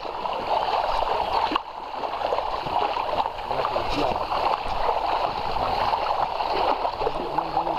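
Shallow river water rippling steadily over a stony bed, with small splashes from wading, dipping briefly about a second and a half in.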